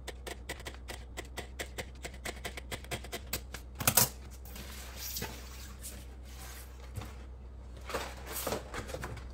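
Kitchen scissors snipping through clear ribbed plastic shelf liner in a fast run of clicks, then the scissors set down on the countertop with a knock about four seconds in. After that the cut plastic sheet rustles as it is handled and lifted, over a steady low hum.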